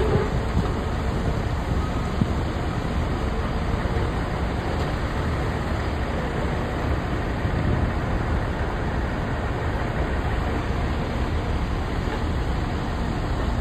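Heavy diesel demolition equipment running steadily, a constant low engine noise with no distinct impacts.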